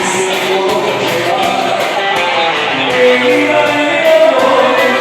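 Music with singing and guitar over a steady beat.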